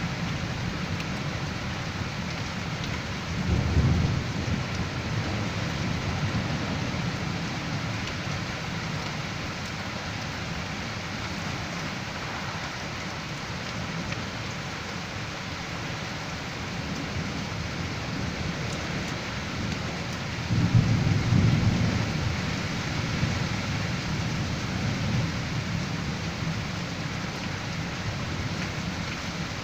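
Heavy, wind-driven rain falling steadily in a severe storm. Two low rumbles surge up over it, one about four seconds in and a longer one about twenty-one seconds in.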